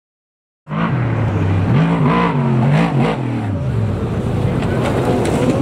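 Off-road Trophy Truck's engine revving hard, its pitch climbing and dropping again and again as the truck is driven through the dirt course; it starts suddenly just under a second in.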